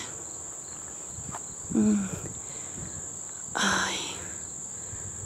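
A steady high-pitched insect chorus from the surrounding woods. A woman's voice gives two short exclamations, about two and four seconds in.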